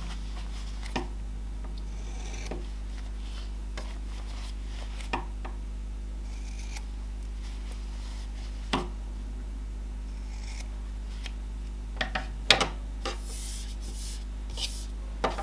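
Fiskars scissors snipping the corners off a sewn fabric mug rug, which clips the seam corners before it is turned right side out. There are several single sharp snips a few seconds apart and a quicker cluster near the end, with light rustling of the cotton fabric over a steady low hum.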